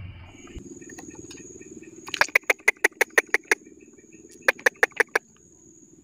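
A rapid run of sharp clicking chips, about six a second, then a shorter run of five. Underneath are a steady low drone and a steady high whine.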